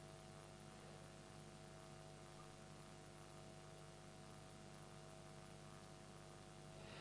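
Near silence: a faint steady electrical hum and hiss from the sound system, with a brief soft rush of noise at the very end.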